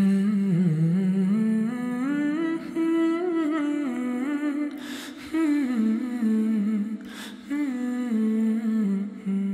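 Bhutanese song on the soundtrack: a solo voice humming a slow, wavering melody without words, pausing briefly for breath about five and about seven seconds in.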